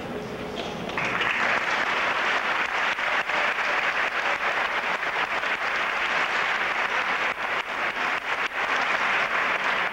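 Audience applause, starting about a second in and going on steadily.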